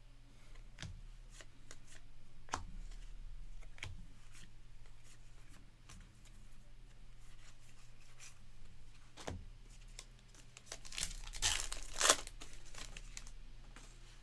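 A trading card pack's wrapper being torn open and crinkled. Light clicks and taps of cards being handled come first, then a burst of tearing about eleven seconds in, which is the loudest sound.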